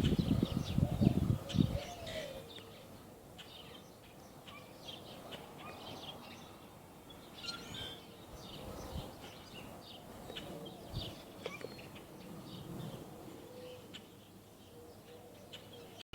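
Small birds chirping and twittering, many short high calls scattered throughout. Loud low rumbling bumps sound on the microphone during the first two seconds.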